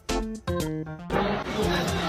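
Background music of short, separate plucked notes. About a second in, a louder steady hiss with a low hum takes over.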